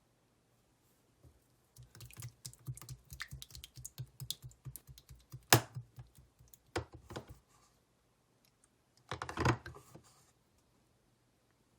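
Slime being squeezed and poked by hand, giving a run of small crisp clicks and pops from trapped air. There is a sharp loud pop about five and a half seconds in, and a louder cluster of pops near the end.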